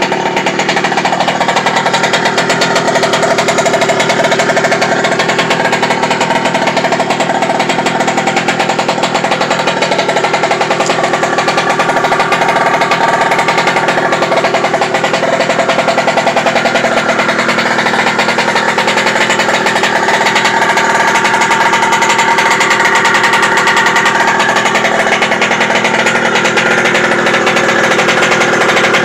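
Two-stroke gas engine of a Losi 5ive-T 2.0 1/5-scale RC truck, a 46 engine, running steadily with a fast even firing rattle. Its pitch drifts slightly now and then.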